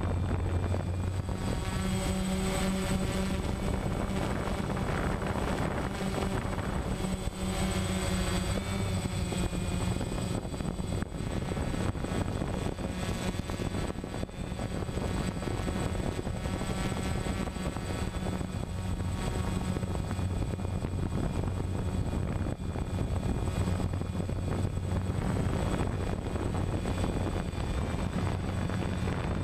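DJI Phantom quadcopter's electric motors and propellers buzzing steadily in flight, heard close from the camera on board: a low hum with a thin high whine, its pitch shifting a few times.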